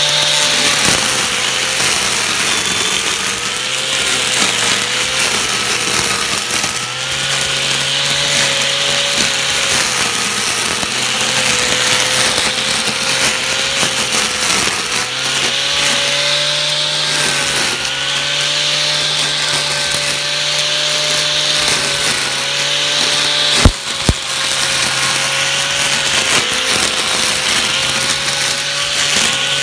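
Homemade electric string trimmer, a repaired electric motor spinning nylon cutting line, running steadily while cutting grass, its hum dipping in pitch now and then. One sharp crack about three-quarters through.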